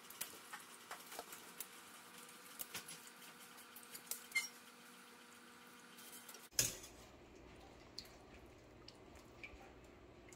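Metal kitchen tongs clicking and tapping against a stainless steel stockpot while dumplings are lowered in: a scatter of light clicks, with one louder knock about two thirds of the way through.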